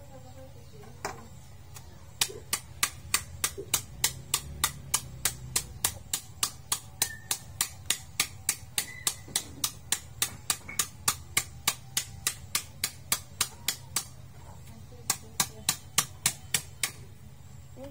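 Rhythmic sharp strikes of a hand-held tool on a wooden cutting board, about three a second. They start about two seconds in, stop briefly near fourteen seconds, then resume for a few more strikes.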